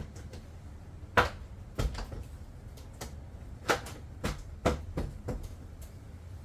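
A series of sharp plastic knocks and clacks, about six spread irregularly over a few seconds, the loudest a little after a second in, from handling and pressing the car's rear interior trim panels into place.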